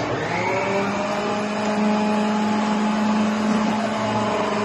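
Preethi Zion mixer grinder motor switched on at speed 1 to slice onions: it starts suddenly, winds up briefly, then runs with a steady hum.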